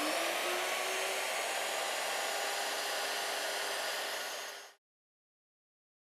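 Plunge router's motor coming up to full speed and running with a steady high whine, then cut off abruptly into silence about three-quarters of the way through.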